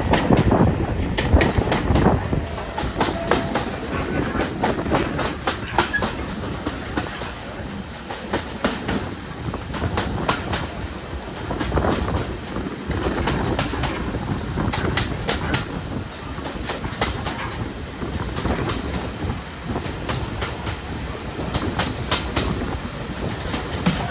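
Steam-hauled passenger train running, its coach wheels clicking in repeated clusters over the rail joints above a steady rumble.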